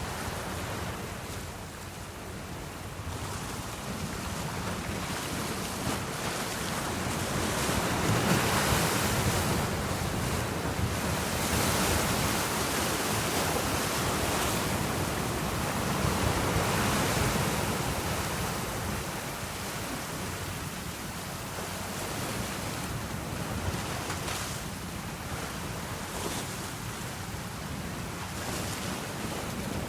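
Sea waves washing against the shore, swelling and easing every few seconds, with wind buffeting the microphone.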